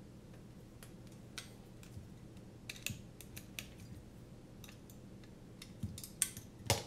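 Hex screwdriver and small screws clicking against a carbon-fibre drone frame as the arm bolts are tightened by hand: scattered light clicks and ticks, with a few louder clacks near the end.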